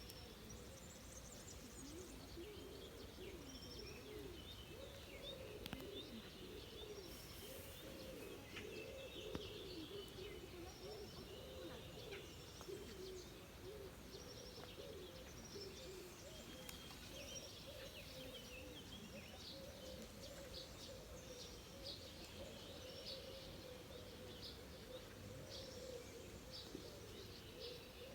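Many birds chirping and twittering in quick short calls throughout, over a continuous low wavering sound underneath.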